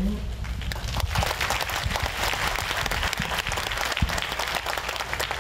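An audience in a large hall applauding, a steady patter of many hands clapping that builds about a second in and keeps going.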